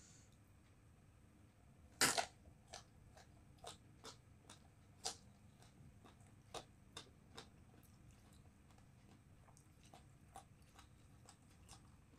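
A crisp bite into a raw purple eggplant about two seconds in, the loudest sound, followed by close-up crunchy chewing that thins out to faint, irregular mouth clicks.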